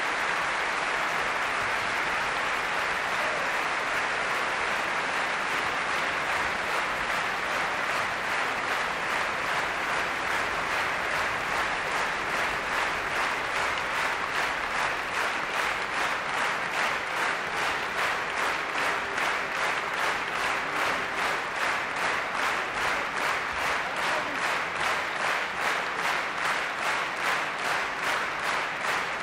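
Concert audience applauding; partway through, the clapping falls into a steady unison beat of about two and a half claps a second, then fades near the end.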